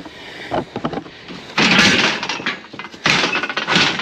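Metalwork on salvaged steel: a few light knocks, then two harsh, noisy bursts of about a second each that start and stop abruptly.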